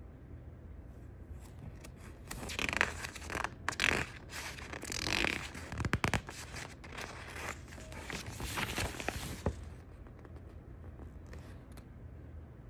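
A folded paper recipe sheet rustling and crinkling as it is handled and turned over, in a run of crackly bursts starting a couple of seconds in and lasting about seven seconds.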